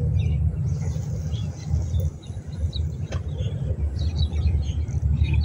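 A steady low rumble, with small birds chirping over it and a single sharp click about three seconds in.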